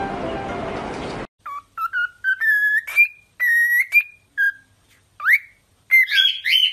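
Cockatiel whistling a string of short and held notes, several of them sliding upward in pitch. Background music cuts off about a second in, before the whistling starts.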